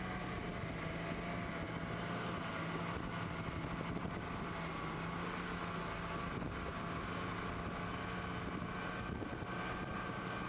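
Yamaha VMax 250 hp four-stroke V6 outboard running under load at a steady, unchanging speed while towing a skier, with wind on the microphone and the rush of water.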